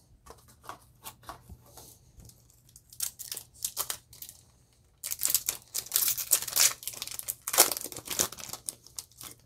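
Foil Yu-Gi-Oh booster pack being torn open at its crimped top and its foil wrapper crinkled as it is peeled back. Faint rustling at first, then loud, dense crinkling and tearing from about halfway through.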